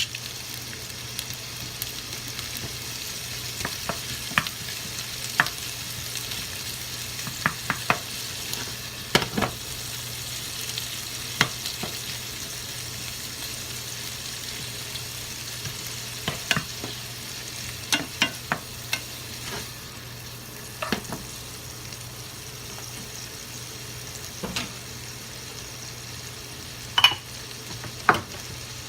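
Shrimp frying in hot oil in a pan: a steady sizzling hiss, with scattered sharp clicks and scrapes of a spatula against the pan as they are stirred.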